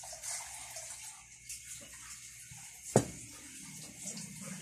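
Spoon and fork scraping rice across a ceramic plate, with one sharp clink of metal on the plate about three seconds in.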